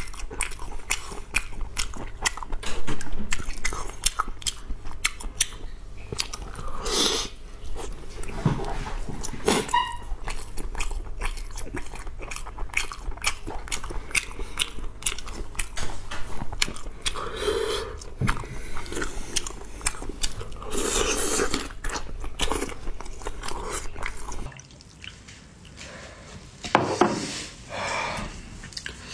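Close-miked person biting into and chewing a thick sausage, with many wet mouth clicks and smacks. A low hum underneath stops about 25 seconds in, and the chewing carries on.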